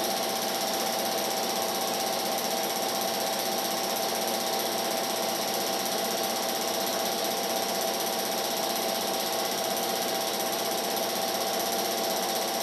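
Film projector running: a steady, fast mechanical clatter with a constant whirring tone.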